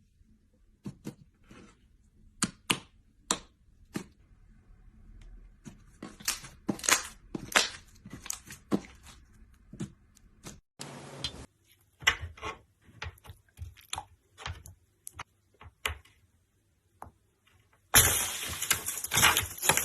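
Brittle material cracking and snapping in irregular sharp cracks, with a short hiss about eleven seconds in and a dense, louder run of crackling over the last two seconds.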